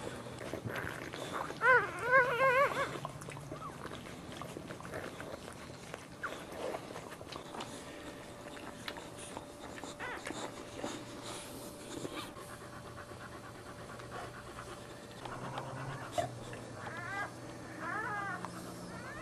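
Newborn boxer puppies squealing in high, wavering cries, a short run about two seconds in and again near the end, over the mother boxer's steady panting.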